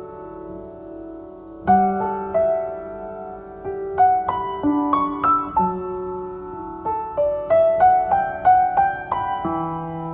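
Background music: a slow instrumental melody of single piano notes, each struck and fading, over a few held low notes, with no singing.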